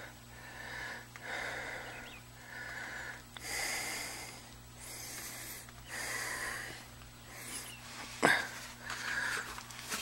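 A man breathing hard, a quick run of inhales and exhales about once a second, with a single sharp knock a little after eight seconds in. A faint steady hum runs underneath.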